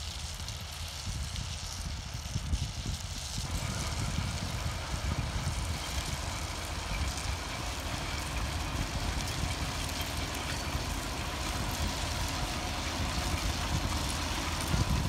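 Tractor engines running steadily under load while a destoner works the potato beds, a low engine hum under a continuous rushing rattle of soil and machinery. It grows fuller and a little louder about three and a half seconds in.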